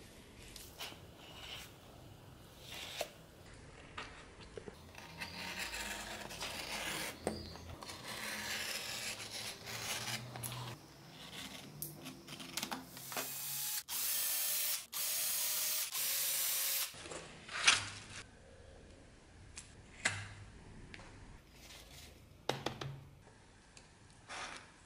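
Utility knife cutting and scraping leather for a knife sheath on a plastic cutting board, with scattered clicks and knocks from handling. About halfway through come three short, loud hissing bursts, followed by a sharp knock.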